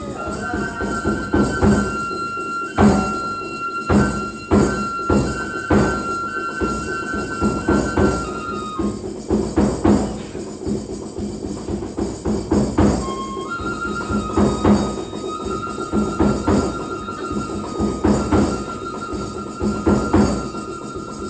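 Kagura music: a bamboo flute holds long high notes over irregular drum strikes. The flute drops out for a few seconds in the middle, then comes back in.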